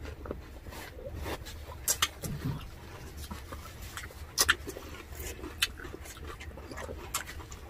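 Close-miked eating sounds: wet chewing and lip smacks with irregular small clicks, and a few sharp crunchy bites into a raw cucumber, the loudest a quick pair about four and a half seconds in.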